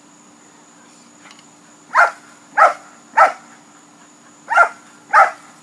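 A dog barking: three sharp barks in quick succession about two seconds in, a short pause, then two more near the end.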